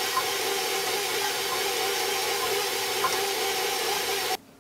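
Electric stand mixer running steadily at low speed, its beater working through batter as dry mix is poured in; the motor stops abruptly near the end.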